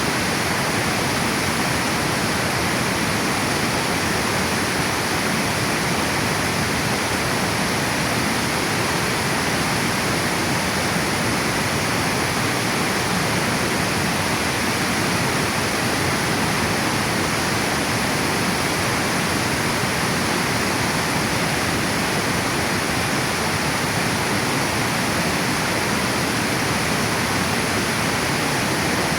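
Water pouring over a river dam spillway, a steady, even rushing.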